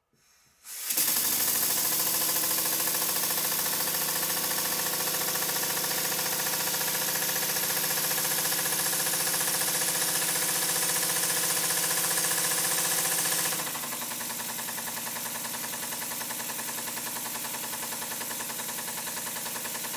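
Horizontal model steam engine running fast on compressed air: a rapid, even exhaust beat under a loud hiss of air. Its steam chest and moving parts are freshly oiled. About thirteen seconds in it drops to a softer level and keeps running.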